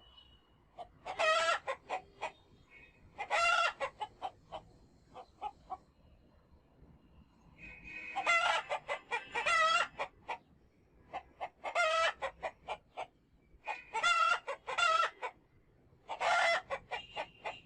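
Roosters crowing again and again, about seven crows in all, with short clucks from chickens in between.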